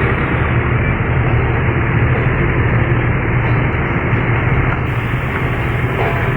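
Excavator's diesel engine running steadily under load, with a constant low hum.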